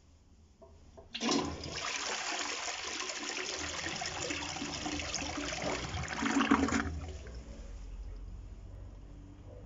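Toilet flushing: a rush of water starts suddenly about a second in, runs for about five and a half seconds and swells just before it falls away to a quieter steady hiss of water.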